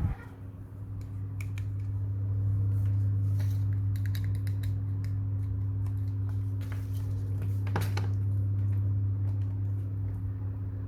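A steady low electrical hum that swells over the first two seconds and then holds, with a few small clicks and taps scattered through it.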